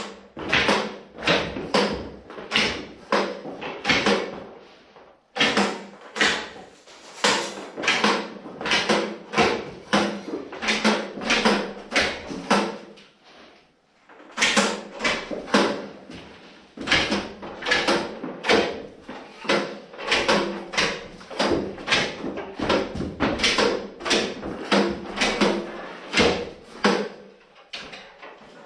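A rapid, uneven series of knocks and clacks, roughly two to three a second, pausing briefly twice.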